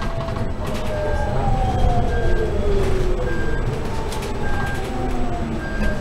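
Electric drive-motor whine of a Proterra ZX5 battery-electric bus heard from inside the cabin: several tones glide slowly downward in pitch as the bus slows, over low road rumble. A short high beep repeats about every second and a quarter.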